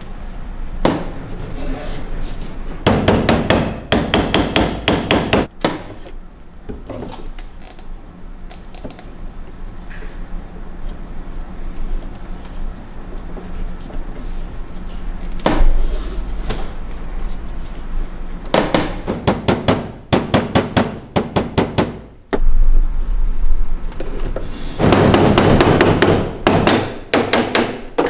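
Bursts of rapid, light tool tapping during work on a sword's hilt fittings. There are three runs of quick, evenly spaced taps, each two to three seconds long, with the loudest near the end, and scattered single knocks between them.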